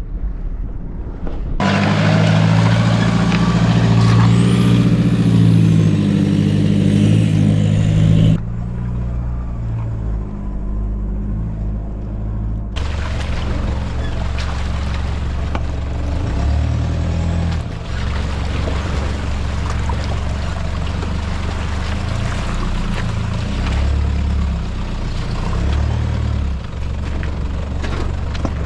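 Toyota Prado 4x4 engine pulling through a deep river crossing, its low drone shifting in pitch, with a loud rush of water around the vehicle for several seconds near the start. The sound changes abruptly a few times.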